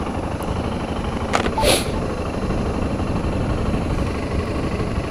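Wind and road noise of a motorcycle riding along, with its engine running underneath as a steady rumble. A short hiss comes about a second and a half in.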